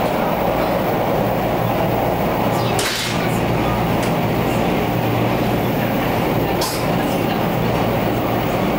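Steady running noise of a 489-series electric limited express heard from inside a passenger car at speed, wheels rumbling on the rails, with two brief sharp clacks about three and seven seconds in.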